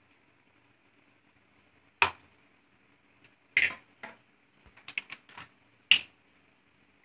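Kitchen containers and utensils being handled on a counter: a few separate sharp knocks and clinks, with a quick run of small clicks about five seconds in.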